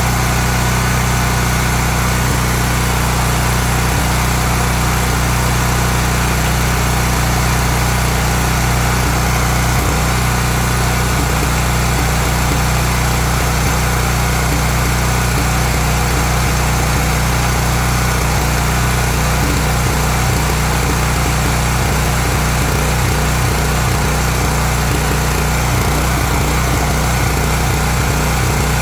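Honda generator's engine running steadily with its fuel valve shut, burning off the fuel left in the carburettor.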